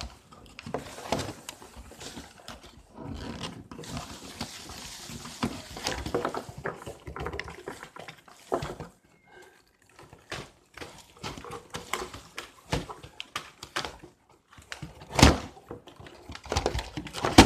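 Cardboard and plastic toy packaging being pulled and worked open by hand: irregular rustling, clicks and knocks, with a louder thump about fifteen seconds in.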